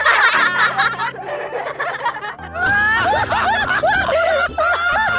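Human laughter over background music. About halfway through, the sound changes to a voice laughing in a quick string of high rising-and-falling 'ha' sounds.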